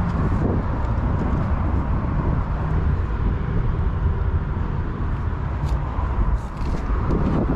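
Steady wind rumbling on the microphone, a continuous low noise with no distinct machine rhythm.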